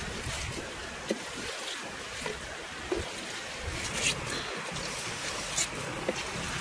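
Steady sizzle of crickets frying in a pot, with a few sharp clicks from the wooden spatula stirring them.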